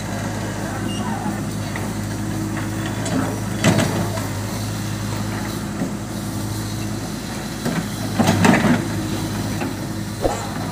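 JCB backhoe loader's diesel engine running steadily under load, with two louder, rough scraping noises about three and a half and eight seconds in as the backhoe bucket digs into and works the soil.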